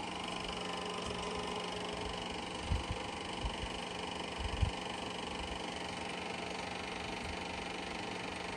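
Eumig Mark S 802 Super 8 film projector running, a steady mechanical whir of its motor and film transport, with a couple of short low knocks about three and four and a half seconds in.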